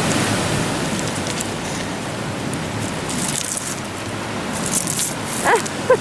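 Sea surf washing on a pebble beach: a steady rushing noise that swells at the start and again about three seconds in, with short rattles of pebbles. A child's brief voice near the end.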